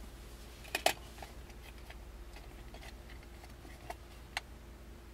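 Low steady hum of a pickup truck idling, heard from inside the cab, with a few scattered faint clicks: a pair about a second in and two more near the end.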